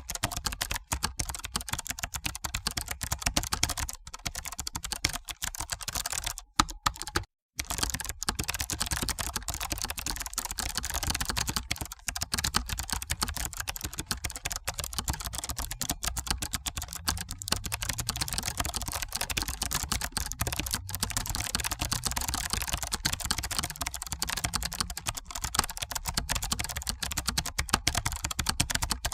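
Computer keyboard typing: a fast, continuous stream of keystrokes, with a brief pause about seven seconds in.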